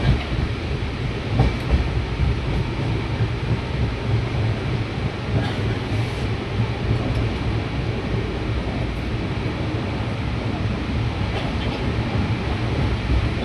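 Train running at speed: a steady rumble and rattle with a few faint clicks from the wheels.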